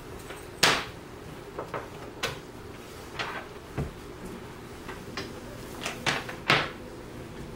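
Plastic laptop being handled on a wooden desk: a scattering of short clicks and knocks, the loudest about half a second in and near the end, over a faint steady hum.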